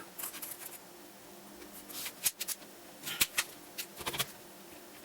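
Scattered light plastic clicks and taps from a laptop being handled as its screen bezel is pressed back into place.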